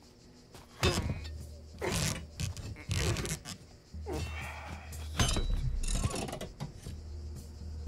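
Nailed wooden coffin lid creaking and groaning in several separate strains as it is pried open with an iron bar, over a steady low hum.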